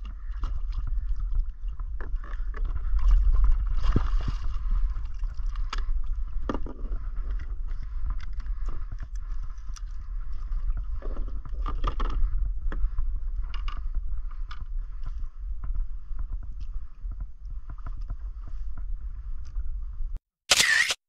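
Water sloshing and splashing around a plastic kayak hull with a low rumble on the action-camera microphone, and scattered knocks and clatters as a fish is landed aboard. A short loud rush of noise comes near the end.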